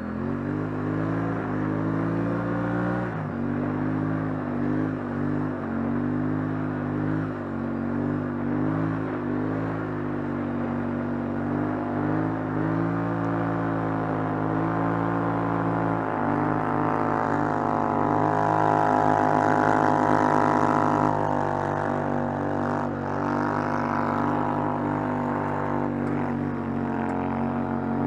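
ATV engine running under steady throttle while riding through snow, its note climbing and getting louder about two-thirds of the way in, then settling back.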